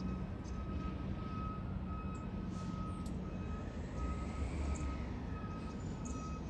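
A truck engine rumbling low and steady while a reversing alarm beeps over and over.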